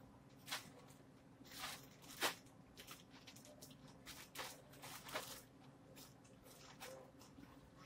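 Food and containers being handled at a deli display case: short, scattered rustles and knocks, the loudest a little over two seconds in, over a steady low hum.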